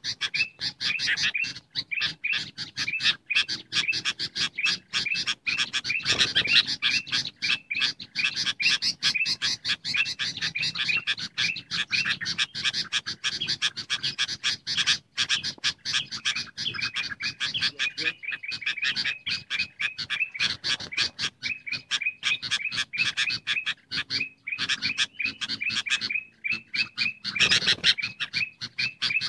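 Bird-lure recording of a noisy flock of bulbuls calling: dense, continuous chattering chirps, several a second, overlapping without a pause.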